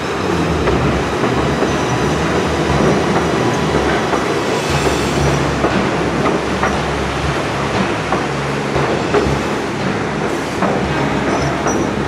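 White Pass and Yukon Route narrow-gauge passenger train heard from on board, a steady rumble of the cars rolling on the track. Scattered clacks come from the wheels over rail joints, with a couple of brief faint high squeals.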